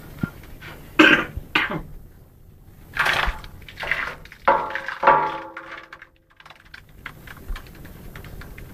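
A person coughing and clearing their throat several times, about a second in and again between three and five seconds in, over the steady low running of a mechanical abon frying machine.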